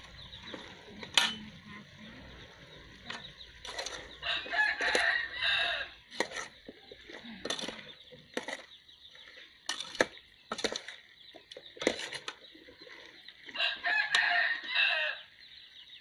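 A rooster crowing twice, about four seconds in and again near the end, each crow about a second and a half long. In between come sharp clinks of a metal ladle against an aluminium cooking pot.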